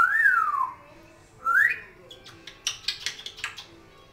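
African grey parrot whistling: a loud whistle that rises and then falls, a second rising whistle about a second and a half in, then a quick run of clicks.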